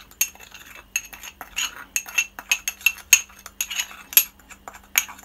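Metal teaspoon stirring a dry spice mix in a small glass jar: irregular clinks and scrapes of the spoon against the glass, about two or three a second.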